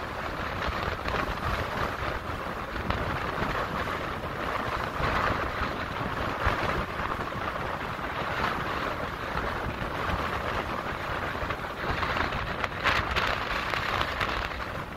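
Strong wind of over 30 knots blowing on the microphone: a steady rushing hiss over a low rumble, swelling and easing in gusts.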